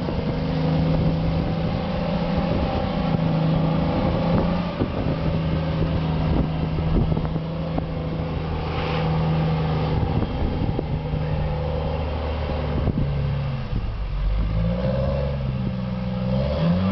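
Snow-ploughing vehicle's engine running steadily, with the revs changing near the start and again about fourteen seconds in.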